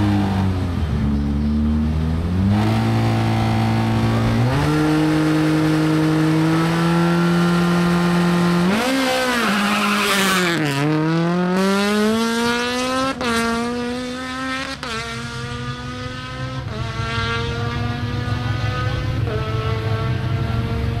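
Honda Civic Type R rally car's four-cylinder engine blipped and then held at high revs on the start line. About nine seconds in it launches, with a brief tyre squeal, and accelerates hard away. It changes up four times in quick succession, each shift a sharp drop in pitch, as it pulls off up the stage.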